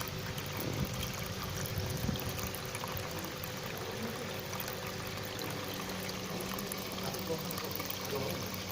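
Homemade tabletop waterfall fountain running: a steady pour and trickle of water, with a faint steady hum underneath.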